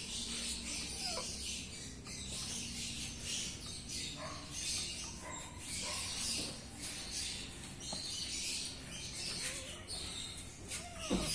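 Kittens play-fighting, with a few faint, short mews that rise and fall in pitch, heard over a patchy high chirping in the background.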